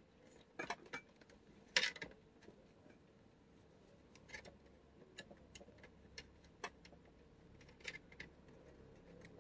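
Scattered light clicks and taps of a charging cable and plastic power bank being handled while the cable is readied to plug in, the loudest about two seconds in.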